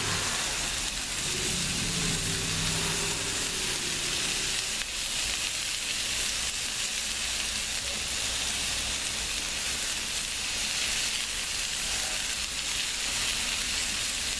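Burgers with mushrooms and onions sizzling on a Blackstone flat-top griddle, a steady frying hiss.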